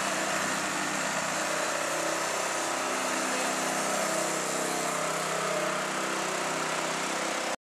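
Engine of a crane-mounted vacuum lifter running steadily, driving its vacuum pump. The sound cuts off abruptly near the end.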